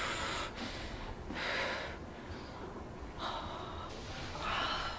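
A person breathing heavily while held in an assisted arm stretch: four audible breaths, each a short rush of air.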